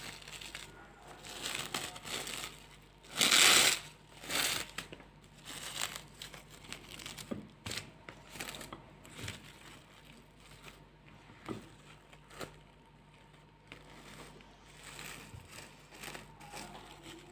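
Plastic cling wrap crinkling and rustling around dough as it is handled and rolled out, loudest in a burst about three seconds in, with a few light knocks scattered through.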